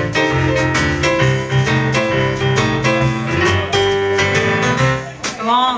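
Live blues band playing a boogie-woogie groove: electric stage piano over a repeating upright electric bass line and drums. The band stops about five seconds in, and a voice comes in at the very end.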